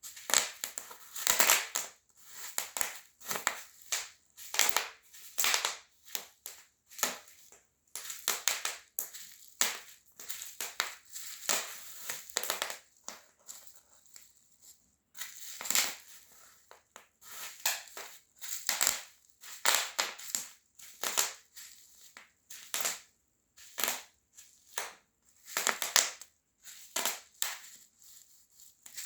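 Bubble wrap being popped and crushed underfoot by high heels: irregular clusters of sharp pops and crackles, with brief pauses between steps.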